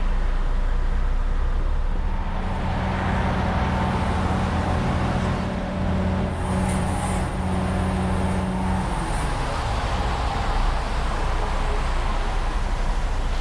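Heavy vehicle engine running amid road traffic noise, with a steady engine hum that sets in about two seconds in and drops away around nine seconds.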